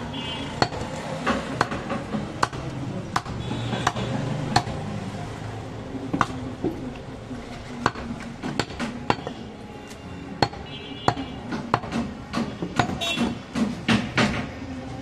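Heavy butcher's knife chopping goat meat on a wooden chopping block: irregular sharp knocks of the blade striking the wood, about one or two a second, coming faster near the end.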